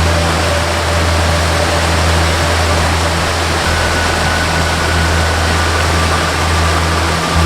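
Steady rushing of a waterfall, with a soft, slow melody of a few long-held notes over a low drone.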